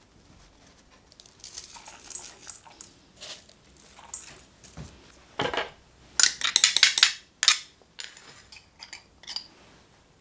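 Kitchen utensils clinking and scraping against a stainless steel mixing bowl as beef mince is seasoned: scattered short clinks and scrapes, with a dense cluster of rapid clinks and rattles a little past the middle.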